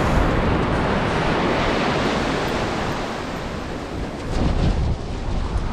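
Sea surf washing on a beach, with wind buffeting the microphone in a low, gusty rumble; it eases slightly about two-thirds of the way through, then picks up again.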